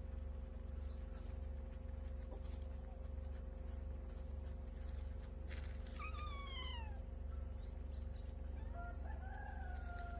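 A cat meows twice: a short falling meow about six seconds in, then a longer, drawn-out meow near the end, over a steady low hum.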